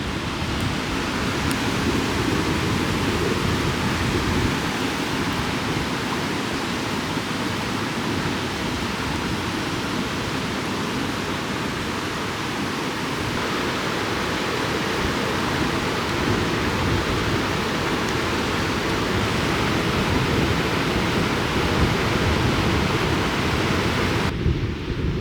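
Steady rushing of moving water, an even, unbroken roar with no separate splashes or gusts.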